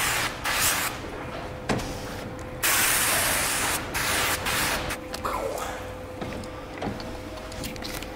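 Trigger spray wand on a hose spraying liquid onto a car's door window glass in several short hissing bursts, the longest about a second long near the middle. A faint steady hum runs underneath.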